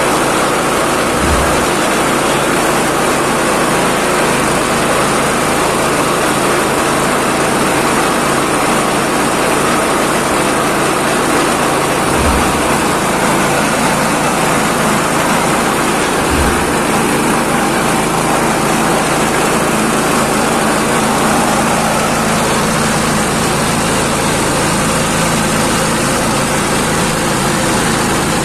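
Vegetable-waste pulping and grinding machine running steadily, a dense even mechanical noise, with a few brief low thuds about a second in and again around twelve and sixteen seconds.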